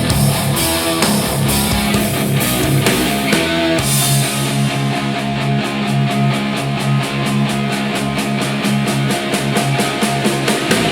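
Instrumental rock music with guitar and no singing. About four seconds in, the deep bass drops out and a fast, even ticking carries on over held notes.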